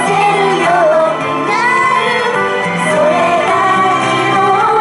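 A female idol group singing a J-pop song live into handheld microphones over a steady pop accompaniment.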